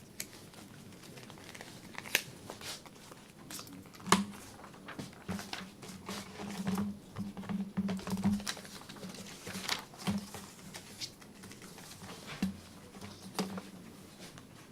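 Rustling and handling noises with scattered sharp clicks and knocks, with a run of short low thuds in the middle.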